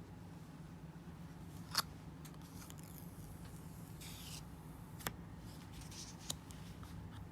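Unboxing handling noises: three sharp clicks, the loudest about two seconds in, with a brief rustle of packaging around the middle and lighter scratchy rustles between.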